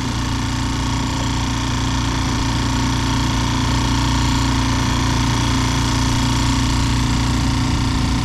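Mercury F3.5 single-cylinder four-stroke outboard motor running steadily, pushing an inflatable boat under way.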